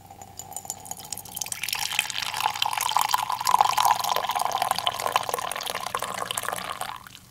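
A dark liquid poured in a stream into a ceramic mug, splashing as it fills. It starts faint, grows louder about a second and a half in, and stops abruptly near the end.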